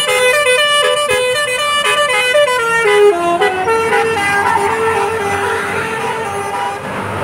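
Bus 'telolet' basuri musical horn playing a tune of changing notes, quick notes at first and longer held notes later. It stops shortly before the end, leaving the low rumble of traffic.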